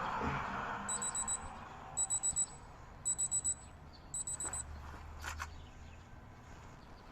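Digital alarm clock beeping in bursts of four quick high beeps, four bursts about a second apart, followed by a short click.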